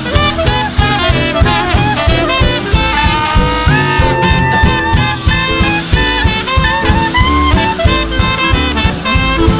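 Swing band music: a brass section of trumpets and saxophones playing over a steady beat, with no singing.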